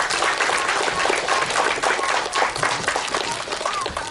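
Audience applause: many people clapping together, dense and steady, then thinning out near the end.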